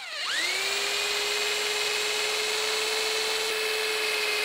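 Electric drill spinning a chucked aluminium bicycle seatpost while plain box board is pressed against it to polish it. The motor whine rises as it spins up just after the start, holds steady over a rubbing hiss, and begins to wind down at the very end.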